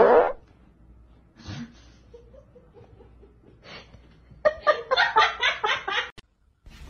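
A person laughing in a run of short, quick bursts, about four a second, near the end, after one short loud outburst right at the start.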